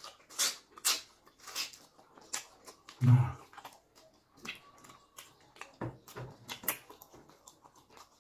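Close-up mouth eating sounds from fufu with okra soup: a run of sharp smacks and clicks, irregular and at times several a second, with one louder short low sound about three seconds in.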